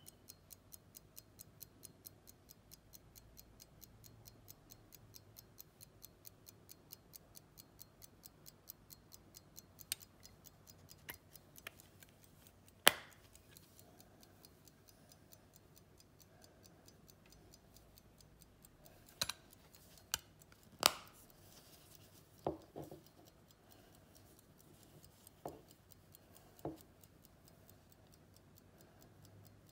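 Key-wound 1886 J.W. Benson 'Ludgate' pocket watch movement ticking, about five ticks a second, fading out about a third of the way in. Then come a series of sharp clicks and snaps from the silver case covers being handled and closed, the loudest near the middle.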